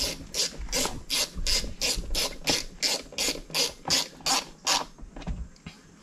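Hand ratchet tightening a small bolt into plastic, a short rasping click on each back-swing, about three strokes a second, stopping about five seconds in.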